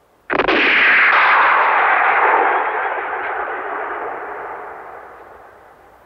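A single gunshot, sudden and loud, followed by a long ringing echo that slowly fades over about five seconds.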